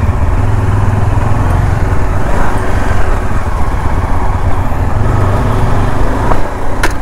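Yezdi motorcycle engine running steadily at low speed on a rough lane. About a second before the end, a sharp knock as a tree branch strikes the rider's helmet.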